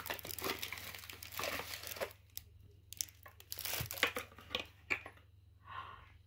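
Gift packaging crinkling and tearing in irregular bursts as a present's box is opened: dense rustling for the first couple of seconds, then scattered crinkles with short pauses.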